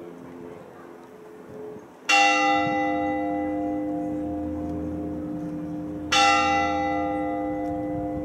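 Large church bell in the cathedral's bell tower struck twice, about four seconds apart. Each stroke rings on and fades slowly.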